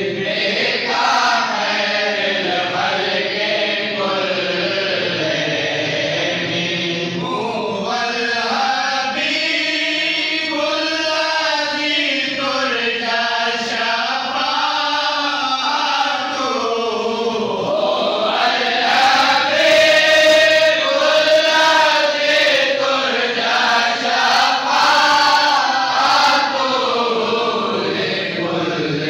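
Group of men chanting a devotional Islamic recitation (naat) together in unison, with melodic, drawn-out phrases.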